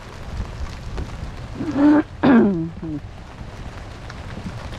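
Steady rain falling, with a short wordless two-part voice sound, falling in pitch, about two seconds in.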